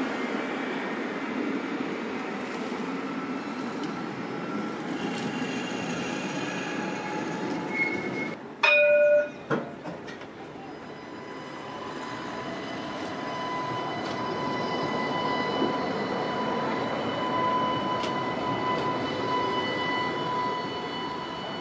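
Alstom electric tram running on its tracks, its traction motors whining. A loud warning blast lasting under a second comes about nine seconds in, and later a steady whine and rumble swell as the tram draws close.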